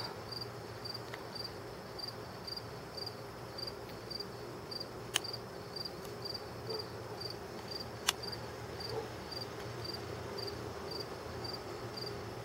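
Crickets chirping: a steady high trill with regular chirps about three every two seconds, over a low steady hum. Two sharp clicks sound, about five and eight seconds in.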